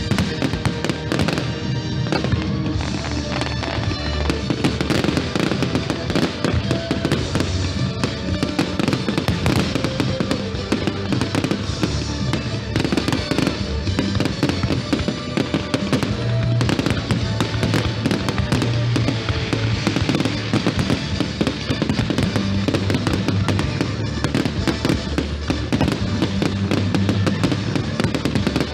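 Fireworks display: a dense, continuous run of bangs and crackles, with music playing alongside.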